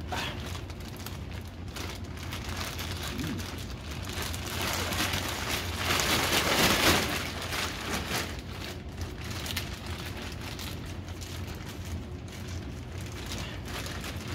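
Black plastic garbage bag rustling and crinkling as hands work at a tight knot in its neck, loudest about halfway through.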